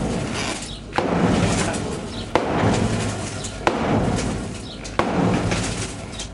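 Hammer blows on the steel floor sheet of a truck body, beating out dents and bulges to straighten it: four heavy strikes about every second and a half, each with a short fading ring and rumble.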